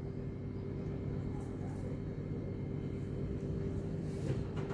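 Steady low mechanical hum with a constant faint tone, with a couple of faint small knocks near the end.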